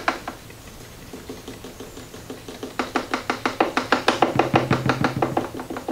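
A jiggle siphon hose drawing gasoline out of a motorcycle fuel tank just after priming. After a single click, a quick, even patter of about six clicks a second starts some two and a half seconds in and grows louder as the siphon flow builds.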